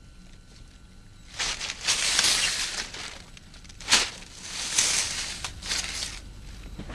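Twig broom sweeping the ground: two long scratchy swishes, with a short sharp stroke between them about four seconds in.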